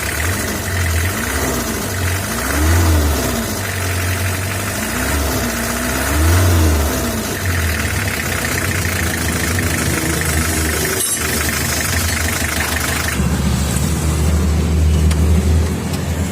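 1985 Toyota Hiace diesel engine running with its serviced injection pump, revved up and back down twice, about three and six and a half seconds in, then running steadily. It runs evenly, without the misfiring it had before the pump's feed pump and drive shaft bushing were replaced.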